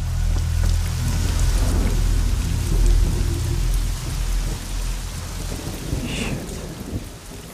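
Heavy rain falling with a long low rumble of thunder that fades away over the second half. A brief high-pitched sound about six seconds in.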